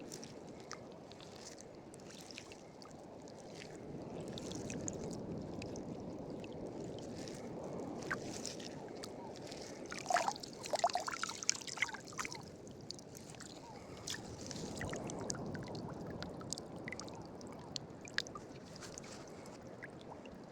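Faint water lapping and trickling, with scattered small clicks and knocks and a brief busier, splashy patch about ten seconds in.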